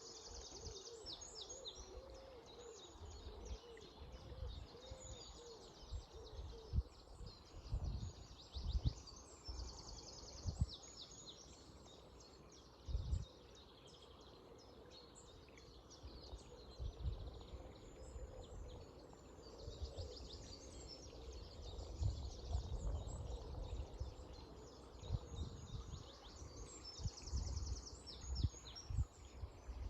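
Dawn chorus of several songbirds, with high chirps and fast rattling trills, over the steady rush of flowing river water. Irregular low thumps of wind buffet the microphone and are the loudest moments.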